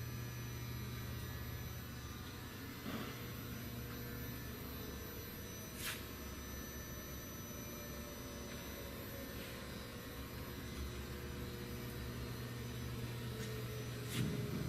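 Steady low machinery hum, with a few brief clicks or knocks about three, six and fourteen seconds in.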